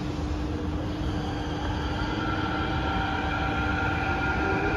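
Kawasaki–CRRC Sifang CT251 metro train heard from inside the car as it pulls away from a station: a steady low rumble and hum, then about two seconds in a whine from the traction motors sets in as it speeds up, with the running noise growing gradually louder.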